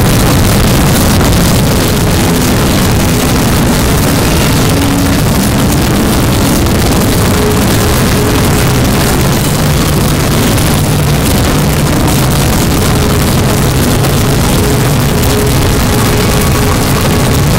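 Loud, steady, distorted wall of noise with a few faint held tones underneath, typical of many video soundtracks playing over one another at once.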